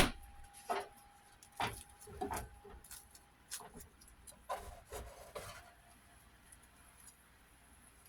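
A metal spatula knocking and scraping in a frying pan as a grilled sandwich is pressed and checked: one sharp knock, then about seven short scrapes and taps over five seconds.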